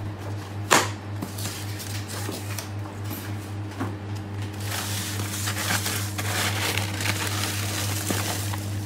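Polystyrene fish box being opened, with a sharp crack about a second in as the lid is pulled. From about halfway, the crunching, crackling rustle of flake ice as a hand digs through it. A steady low hum runs under it all.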